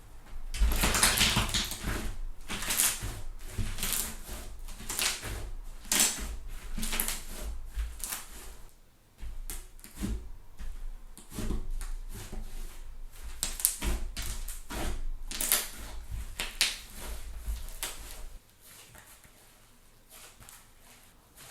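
Thick fluffy slime being pressed and stretched by hand, making irregular loud pops and crackles as its trapped air bubbles burst. It goes much quieter about three seconds before the end.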